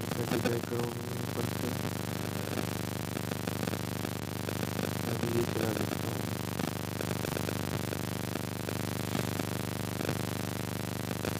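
A steady buzzing hum over hiss, with faint, indistinct pitched sounds rising above it near the start and again about five and a half seconds in.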